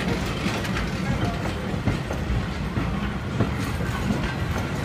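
Old passenger coaches of a historic train rolling past at close range: a steady rumble of wheels on rails with irregular clicks and clacks.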